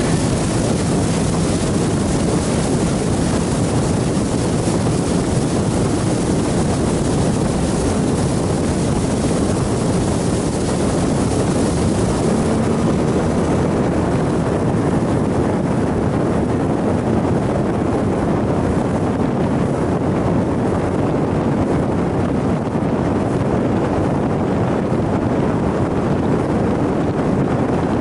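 A 90 hp outboard motor pushing a small open motorboat at speed, steady and loud, mixed with wind buffeting the microphone and water rushing past the hull. The hissy upper part of the noise eases about halfway through.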